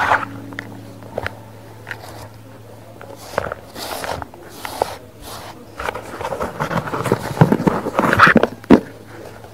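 Dry baking soda being crumbled and squeezed by hand: soft gritty crunching with scattered crackles. The crunching grows denser in the second half as hard chunks are broken apart, with a sharp crack near the end.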